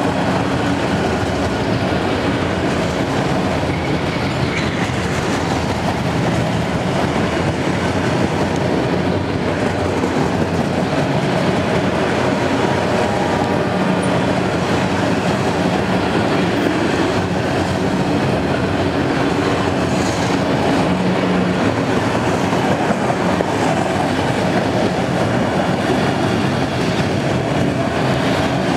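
A freight train's autorack and tank cars rolling past at speed, a steady rumble and clatter of steel wheels on the rails.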